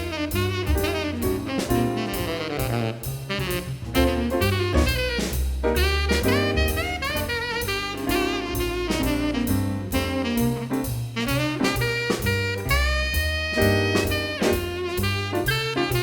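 Background jazz music: an instrumental break between sung verses, with a lead melody over a steady drum beat and a low bass line.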